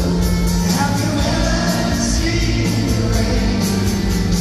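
Live band playing a rock song in concert: drums with regular cymbal strokes, guitars and a steady bass line, with a man singing lead and backing voices.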